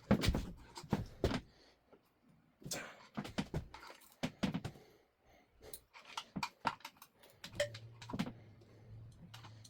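Irregular metallic clicks and taps of a screwdriver used as a pry bar against the engine's timing belt tensioner and surrounding engine parts. A low steady hum comes in about three-quarters of the way through.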